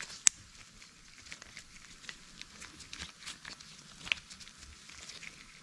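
Small plastic clicks and rustles of a radiator pressure tester adapter being handled and threaded onto the radiator filler neck by gloved hands, with one sharp click just after the start and scattered lighter ticks after it.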